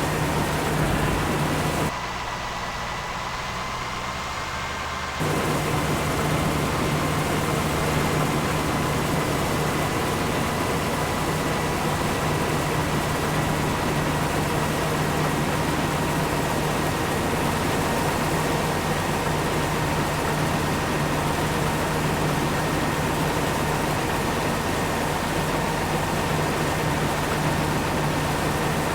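Farm machinery running steadily: a constant engine drone with a steady high whine over it. The sound drops in level for about three seconds shortly after the start, then returns unchanged.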